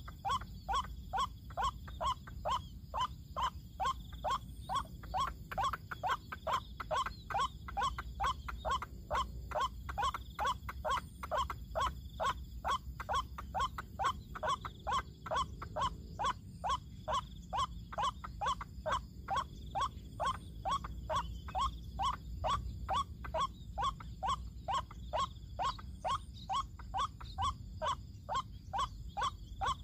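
White-breasted waterhen's kru-ak call, repeated steadily at about two to three calls a second with no break.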